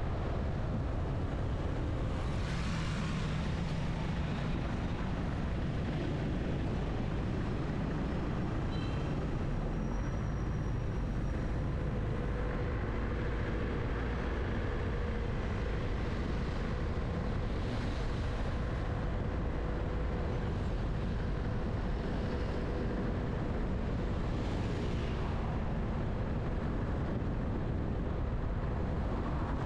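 Steady road and traffic noise from a car driving through city streets: a constant low rumble, with other vehicles passing by now and then.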